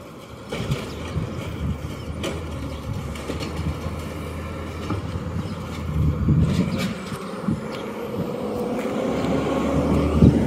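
Garbage truck's engine running steadily, with scattered clicks and knocks, growing louder over the last few seconds.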